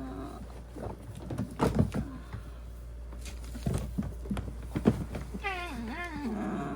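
A cat yowling in protest while being held for a subcutaneous fluid injection, which hurts it. A wavering drawn-out yowl comes near the end, and several sharp knocks and thumps come before it as the cat struggles.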